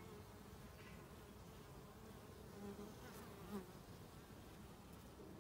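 Faint buzzing of honeybees at a hive entrance. There are a couple of slightly louder passes near the middle, as bees fly close by.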